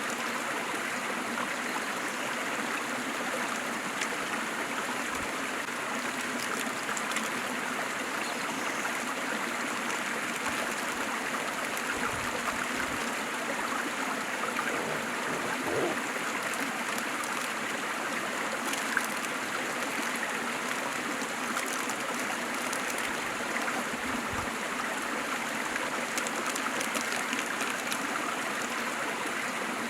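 Waterfall and stream water rushing and splashing steadily, with a little gurgling.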